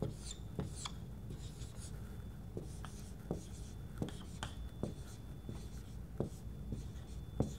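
Dry-erase marker writing on a whiteboard: irregular short strokes and taps of the marker tip as letters are drawn.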